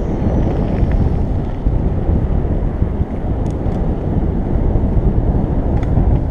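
Wind buffeting the microphone of a camera on a moving rider: a steady low rumble, with a couple of faint clicks about three and a half seconds and six seconds in.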